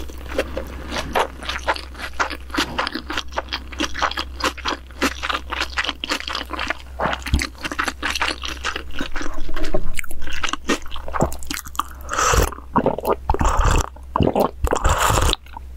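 Close-miked eating: steady chewing with many quick wet mouth clicks. About twelve seconds in come heavier sips and swallows as seaweed soup (miyeokguk) is drunk from the bowl.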